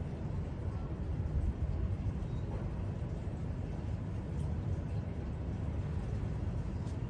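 Steady low rumbling background noise, with a couple of faint clicks.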